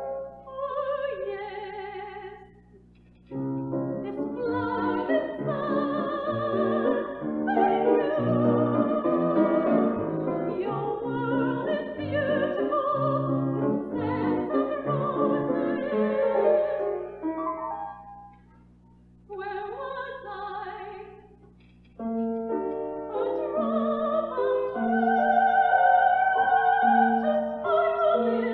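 Classical art song: a woman's trained voice sings sustained notes with vibrato over piano accompaniment, with two brief pauses in the second half.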